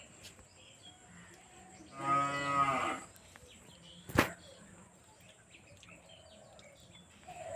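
A cow moos once, a steady call lasting about a second, and a single sharp click follows about two seconds later.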